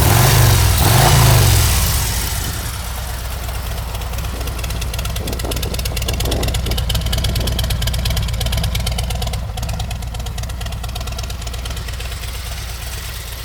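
Harley-Davidson 114 cubic-inch V-twin running through Rinehart exhaust pipes, louder for the first two seconds as if blipped, then settling into a steady idle.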